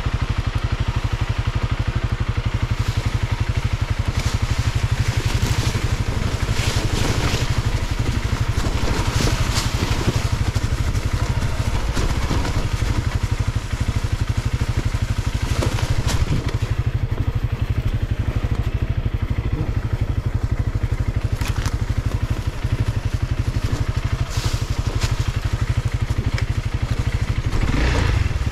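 Single-cylinder dual-sport motorcycle engine idling steadily, with scattered scrapes and knocks on top.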